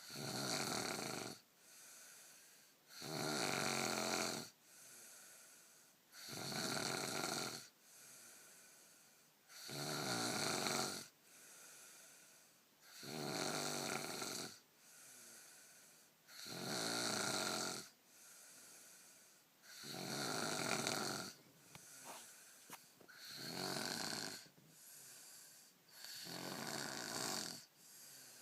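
A sleeping person snoring in a steady rhythm: a loud snore about every three and a half seconds, each lasting a little over a second, with softer breaths in between.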